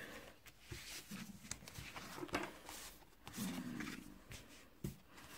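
Sheets of paper and sticker sheets being handled and shuffled: soft rustles and a few light taps. A short, low, wordless murmur of a voice is heard about two thirds of the way through.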